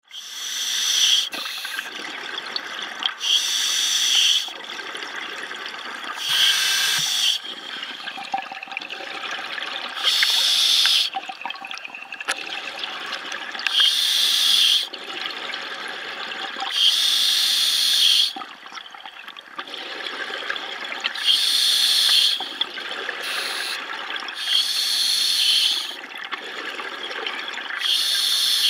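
A diver breathing through an open-circuit scuba regulator underwater: a hiss of air on each breath in and a rush of exhaust bubbles on each breath out, about every three to four seconds.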